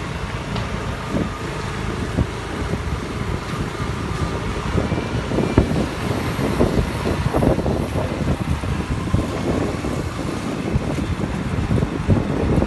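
Steady low rumble of a motorcycle on the move, with wind hitting the microphone in uneven gusts that get stronger about halfway through.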